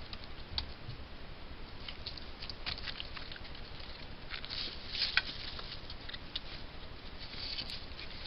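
Irregular light ticks, crackles and patters over the steady hiss of a trail camera's microphone, with a sharper snap about five seconds in: a fisher moving through wet sticks and shallow water beside the trap.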